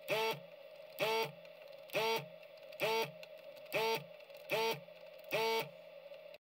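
Electric desoldering gun's vacuum pump whirring in short bursts, eight times at about one a second, each burst rising in pitch as it spins up. Each burst is the trigger sucking molten solder from a joint as the parts are removed from the board. A faint steady hum runs underneath.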